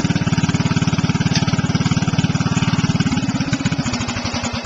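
Old 14 hp overhead-valve riding lawn mower engine with a worn-out muffler, running steadily, then shut off about three seconds in, its firing slowing and dying away.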